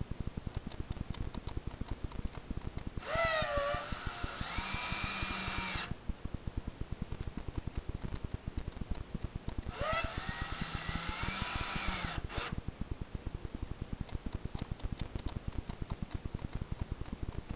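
Cordless drill driving screws into a wooden door jamb to mount plastic gate clasps, in two runs of a few seconds each. In each run the motor whines up in pitch, then holds steady. A fast, even ticking continues in the background.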